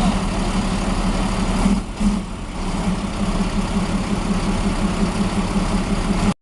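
A heavy vehicle's engine running steadily with a pulsing low hum, briefly dropping in level about two seconds in, then cutting off suddenly near the end.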